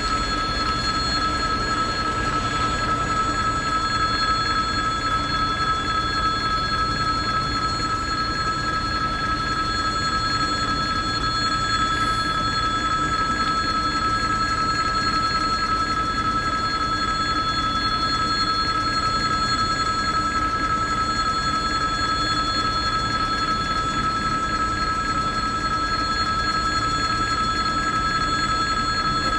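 Level-crossing warning bell ringing continuously at an even level, the alarm that sounds with the flashing red lights while the barriers are down for an approaching train.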